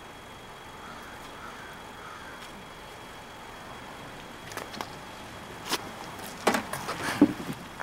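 Faint steady outdoor background, then from about four and a half seconds in a string of knocks, bumps and rustles as a body is heaved into a car's open trunk.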